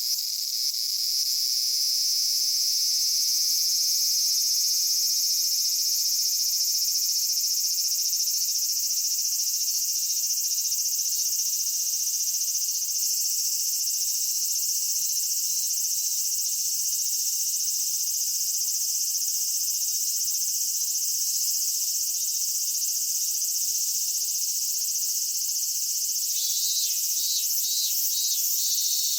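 Summer cicadas in a dense chorus: a continuous shrill buzz. About 26 seconds in, a second, pulsing call joins it.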